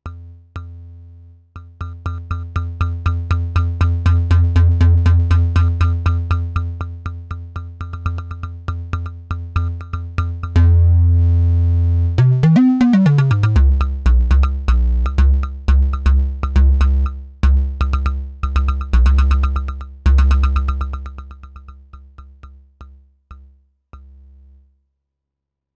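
Analog synthesizer patch played through a CA3080 OTA-based quad voltage-controlled amplifier: a low bass tone chopped into rapid repeated notes by envelopes and amplitude modulation, swelling and dipping in loudness. About twelve seconds in, a tone sweeps up in pitch and back down. Near the end the notes fade out and stop.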